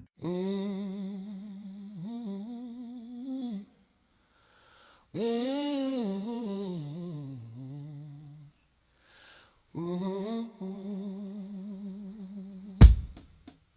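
A solo voice humming a slow wordless melody with vibrato and no accompaniment, in three phrases with short pauses between them. Loud drum hits come in near the end as the band starts.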